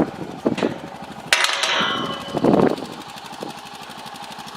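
An engine idling with a fast, even pulse. About a second in comes a sharp metallic clank that rings briefly, and a moment later a short, louder burst of noise.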